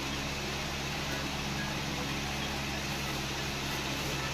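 Steady mechanical hum with an even hiss, as of a motor running without a break.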